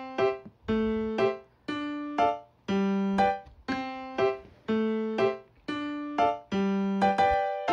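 Background music: a light keyboard tune of short struck notes, each dying away quickly, repeating a phrase about once a second.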